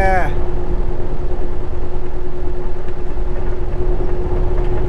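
Semi-truck engine and road noise heard inside the cab at highway speed: a steady rumble with a constant hum.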